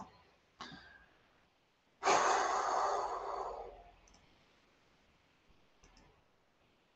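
A man's long sigh: one audible exhale close to the microphone about two seconds in, fading away over less than two seconds. A few faint clicks come before and after it.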